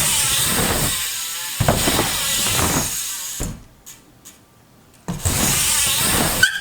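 BMX bike rolling over a wooden ramp deck, tyres rumbling on the boards. The sound drops away for about a second and a half while the bike is in the air, then comes back abruptly on landing about five seconds in.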